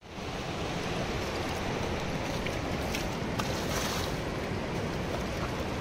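Steady rushing of flowing river water, an even noise that fades in at the start and holds level throughout.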